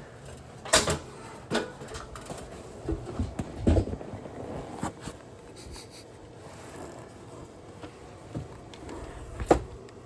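Scattered clicks and knocks of handling inside a pickup's cab, the sharpest one near the end.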